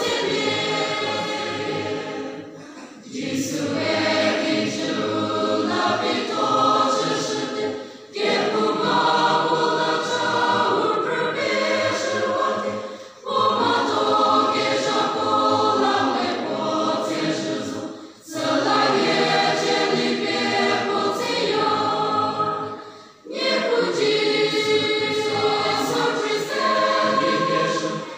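Large mixed church choir singing a Christian hymn, in phrases of about five seconds with a short breath-break between each.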